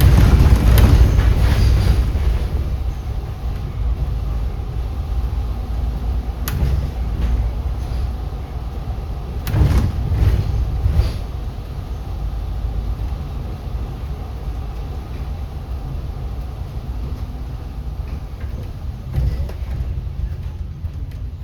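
City bus running, heard from inside: a steady low rumble of engine and road, with two louder rushing swells, one at the start and one about ten seconds in, and a sharp click partway through.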